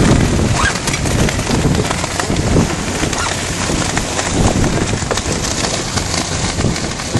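Wind buffeting the microphone over the rush and splash of water along the hull of an RC 44 racing yacht sailing through chop, in uneven gusts.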